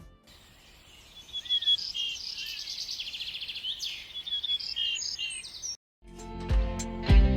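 Small songbirds chirping and calling, several short high calls overlapping, with a rapid trill in the middle. The birdsong cuts off suddenly near the end and music begins.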